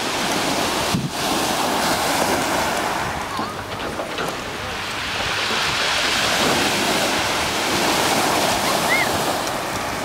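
Ocean surf breaking and washing up over a pebble beach. The wash swells twice, over the first few seconds and again from about five to nine seconds in.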